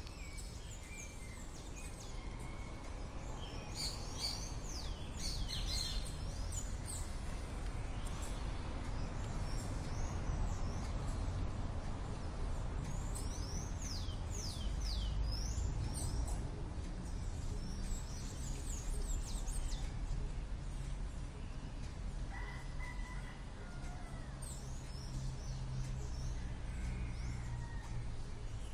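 Outdoor ambience by a creek: a steady low rumble, with several bursts of quick, high, falling chirps, about four, fourteen and eighteen seconds in.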